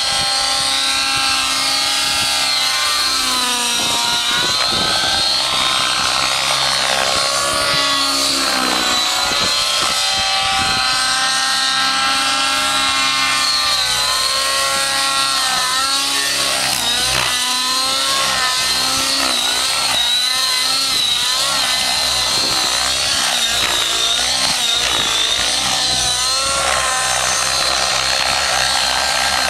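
Rave 90 nitro RC helicopter's glow engine and rotors running hard through aerobatic flight, the pitch rising and falling again and again as it swoops, flips and passes by.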